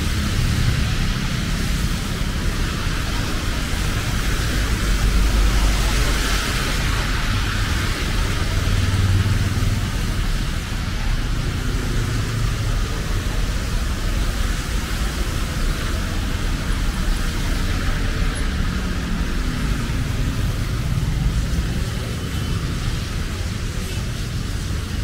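City street traffic: a steady wash of engine and tyre noise from passing road vehicles, swelling as a vehicle goes by close about five to seven seconds in.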